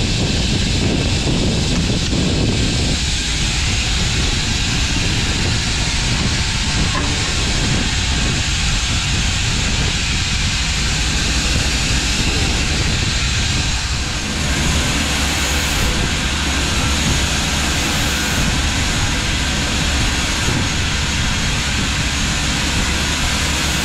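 Shelled corn pouring out of a grain truck's hopper gates through a steel grate into an elevator pit: a steady rushing hiss with a low rumble underneath.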